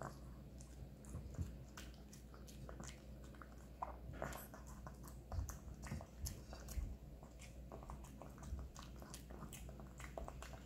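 Shih Tzu eating chopped hard-boiled egg from a hand: faint, irregular chewing and mouth clicks, with a few soft low thumps about midway.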